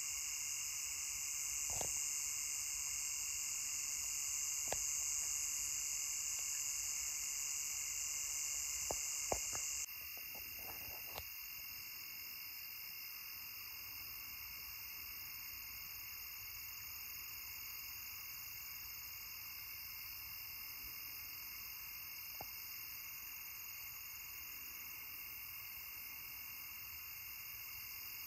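Night insect chorus: a steady, layered high trilling from many insects at several pitches. About ten seconds in, the loudest of the layers cuts off suddenly, leaving a quieter chorus; a few faint clicks sound in the first half.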